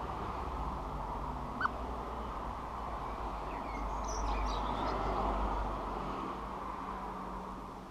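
Faint chirps of small garden birds over steady background noise, with one short high note about one and a half seconds in.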